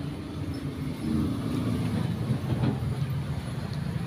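A low, steady motor-like rumble that grows louder about a second in, with a few faint clicks.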